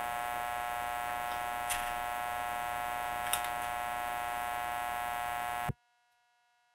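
A steady electrical buzz with a few faint ticks, cutting off suddenly near the end to near silence.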